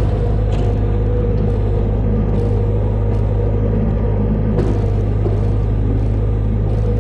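Bobcat skid-steer loader's engine running steadily under load, with several short clicks and knocks from the forks and load.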